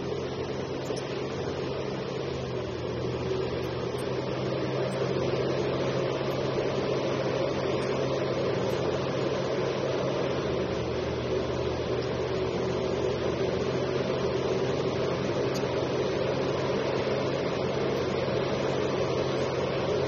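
Liebherr R 984C crawler excavator's diesel engine and hydraulics running steadily under load as the machine dumps, swings and digs. The engine note gets louder a few seconds in.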